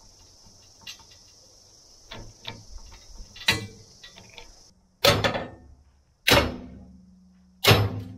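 Light metallic clicks from a bottle jack being pumped against a homemade steel puller on a seized splined hub. Then three loud, sharp metal bangs about a second and a half apart, each ringing briefly through the steel, as the tightly clamped hub is forced under heavy load.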